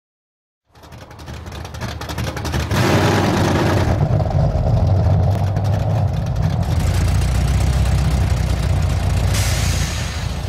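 A low, steady engine-like rumble that fades in over the first few seconds, with a brief hiss about three seconds in and again near the end.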